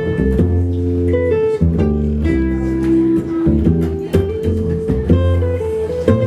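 Acoustic guitar and upright bass playing an instrumental passage together, the guitar picking held single notes over the bass line, with no singing.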